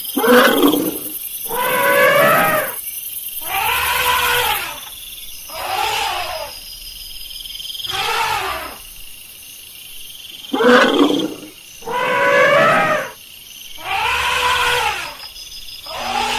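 Elephant calling over and over: a series of loud pitched calls about every two seconds, each arching up and then falling.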